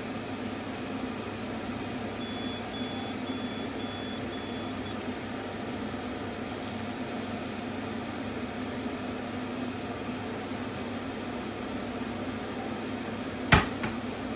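Steady hum of running kitchen machinery, with a faint high beeping that starts about two seconds in and lasts about three seconds. A single sharp knock sounds near the end.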